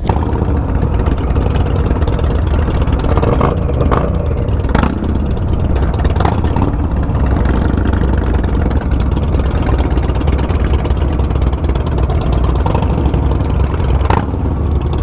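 Honda Rebel 1100 DCT's parallel-twin engine running steadily at an even pitch, with a few short sharp clicks or knocks a few seconds in and again near the end.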